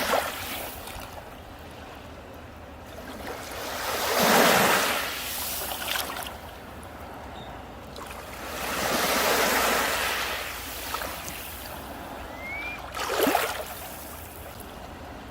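Sea waves breaking on a beach, each one a swelling rush of surf that fades away, coming about every four to five seconds. The sharpest, shortest crash comes near the end.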